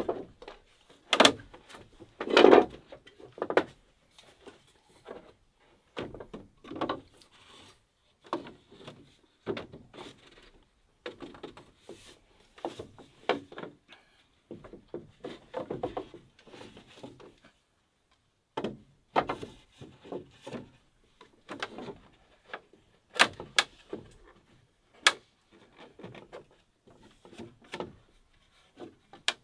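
Hollow bamboo poles knocking and clunking irregularly as they are handled and fitted into a chair frame on a bamboo deck, with a few sharp clicks in the second half.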